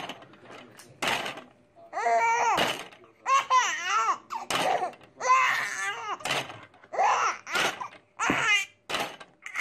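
Baby laughing in a string of high-pitched bursts, several times over.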